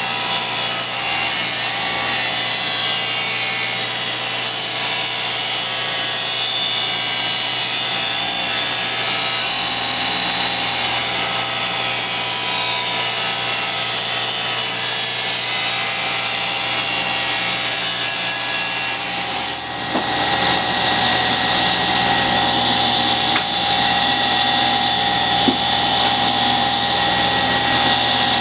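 Table saw ripping a thin wooden strip along the fence, the blade cutting with a steady high hiss. About two-thirds of the way through, the cut ends and the hiss drops away abruptly, leaving the saw running on freely with a steady hum.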